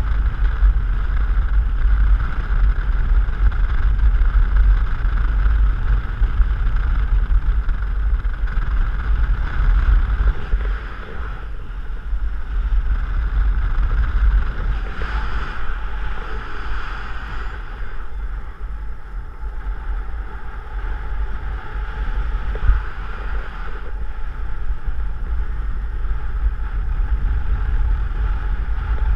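Wind rushing over an action camera's microphone on a paraglider in flight: a steady heavy rumble with an airy hiss on top, easing a little about eleven seconds in.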